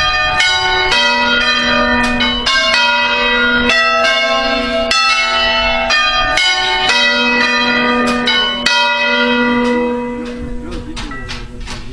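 Five-bell church concerto in B, rung by hand on a fully manual system, the bells swinging on their wheels and striking one after another in a quick sequence, each stroke ringing on over the next. About ten seconds in the ringing drops in level and the strokes become fainter and sparser.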